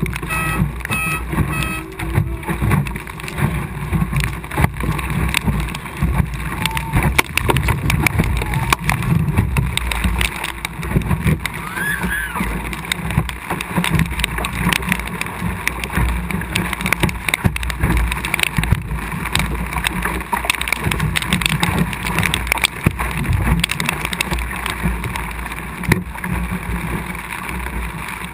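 Water splashing and slapping against the hull of an Optimist sailing dinghy under way, with spray coming aboard and wind buffeting the low-mounted GoPro's microphone. A few short, evenly spaced beeps sound in the first two seconds.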